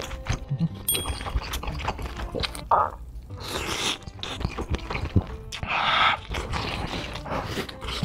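Close-miked eating sounds from a spoonful of spicy malatang: wet slurps off the spoon, with lip smacks and chewing between them, sped up to 1.5x. Two longer slurps stand out, about three and six seconds in. Background music plays under them.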